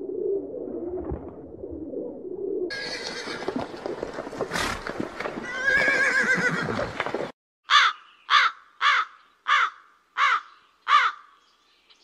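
Pigeons cooing low at first. Then a horse whinnies, a wavering call over a noisy background. Near the end a crow caws six times, about one caw every 0.6 seconds.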